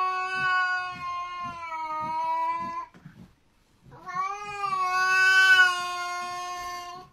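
A cat yowling in two long, steady-pitched cries. The first breaks off about three seconds in, and after a second's pause the second begins.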